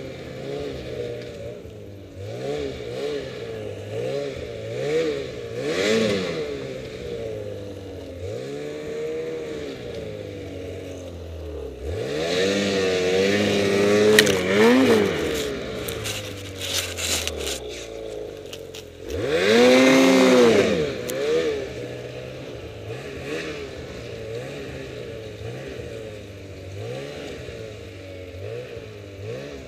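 Ski-Doo Summit X 800R E-TEC two-stroke twin snowmobile engine revving up and down again and again under the rider's throttle while riding through snow. There are two big surges, one about twelve seconds in and the loudest about twenty seconds in.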